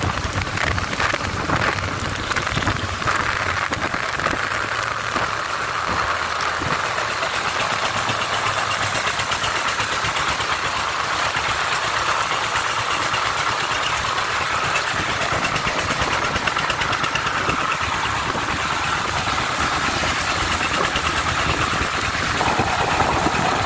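Vehicle engines running steadily while moving along a wet road, among them the single-cylinder diesel of a công nông, a three-wheeled farm truck loaded with crushed stone, close ahead.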